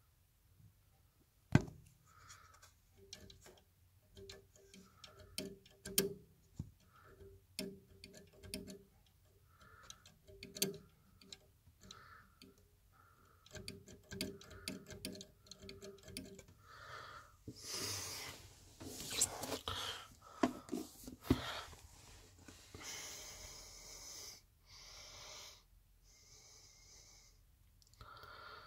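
Computer case fan catching as it spins: its blades tick and click irregularly against something in the case, over a faint recurring hum. The second half turns into rougher, noisier rubbing.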